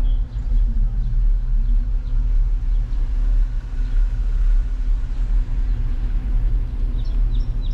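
Steady low rumble of wind buffeting and tyre noise picked up by a bicycle-mounted GoPro as the bike rolls along the street.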